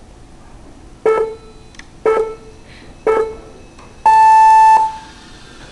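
Race start countdown from the FPV race timing system: three short beeps a second apart, then a longer, higher, louder tone that signals the start of the heat.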